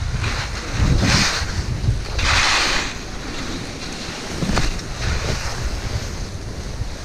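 Skis running down thin snow cover, the edges scraping in noisy bursts about a second in and again around two and a half seconds, over a steady low rumble of wind buffeting the microphone.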